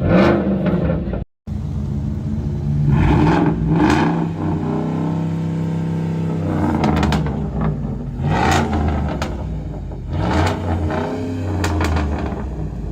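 Ford F-150's aftermarket exhaust as the engine is blipped several times, each rev falling back with a dropping note. Sharp cracks and pops come on the overrun. The sound drops out briefly a little over a second in.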